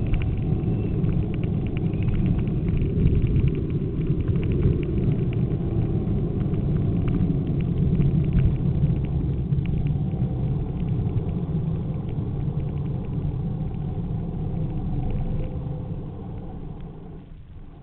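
A gravity racer cart rolling fast down an asphalt road: a loud, steady rumble of its wheels on the tarmac, with its frame rattling and clicking. Near the end the rumble fades as the cart slows to a stop.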